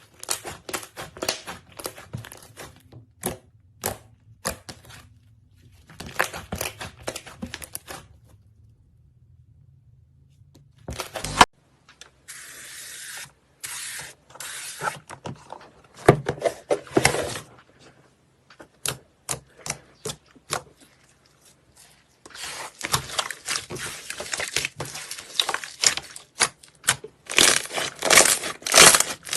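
Hands squishing, poking and stretching slime, giving sticky crackling and popping clicks that come in bursts separated by short pauses.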